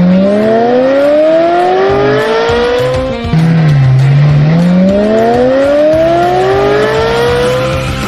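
A race-car engine revving up twice: the first rev climbs steadily in pitch and breaks off about three seconds in, then a second starts low, dips, and climbs again for about four seconds. Rock music plays underneath.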